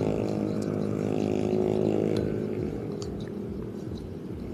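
A low motor hum with many overtones fades out over the first two seconds, followed by a few light clicks.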